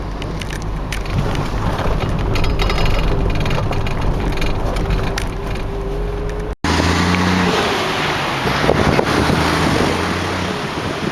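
Steady low rumble with wind noise on the microphone. About six and a half seconds in, the sound drops out for an instant and comes back as a rougher, gustier rumble.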